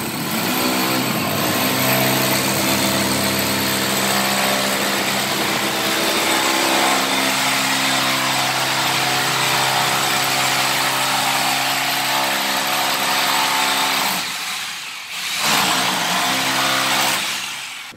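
A power tool's motor running loudly and steadily with a steady hum and a hiss over it. It stops briefly about fourteen seconds in, then runs again for about two seconds.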